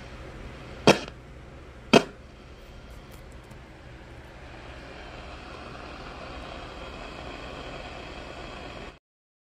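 Radio receiver hiss and static between stations, with two sharp crackles about a second apart near the start. The hiss grows a little after the middle and cuts out to silence just before the end.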